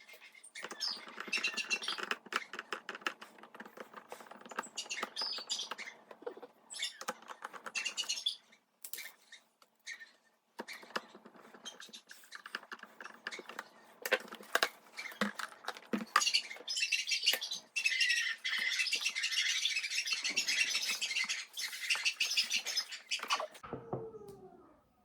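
Krups Grind and Brew drip coffee maker running: its heating element sputtering and crackling as it heats water and pushes it up the pipe, settling into a steady high hiss about two thirds of the way through.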